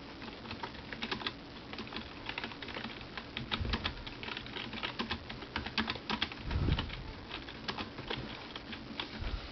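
Computer keyboard being typed on in irregular runs of keystrokes, with a few duller, heavier thuds among them.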